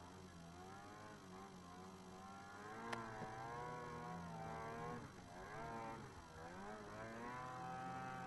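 Ski-Doo Summit 600 HO E-TEC snowmobile's two-stroke twin engine revving up and down in several waves while the sled is ridden through snow, with one sharp click about three seconds in.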